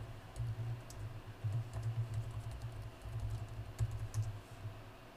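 Computer keyboard typing: scattered single keystrokes, a few short clicks spaced irregularly, over a low steady hum.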